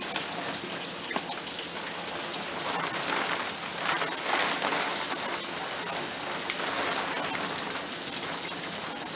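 Heavy rain and hail pouring down: a dense steady hiss with scattered sharp hits.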